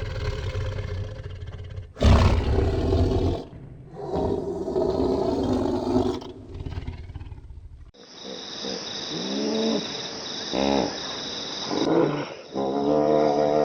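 Farm animals calling: drawn-out, low, pitched calls, the loudest about two seconds in, then a sudden change about eight seconds in to a different set of shorter, arching calls.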